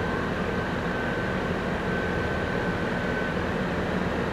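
Steady hum of idling heavy machinery and passing road traffic, with a faint thin high whine that fades out about three seconds in.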